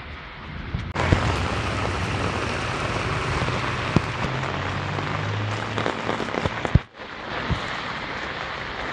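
Heavy rain pouring onto floodwater: a dense, steady hiss with scattered sharp drop hits close by. It gets louder about a second in and cuts out for a moment near the end.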